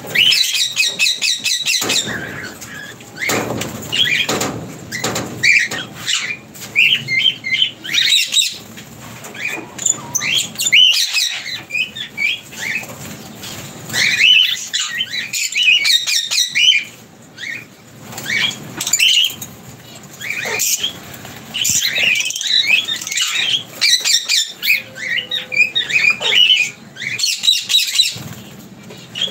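A flock of caged lovebirds chirping and chattering in quick runs of short, high-pitched calls, with occasional wing flaps.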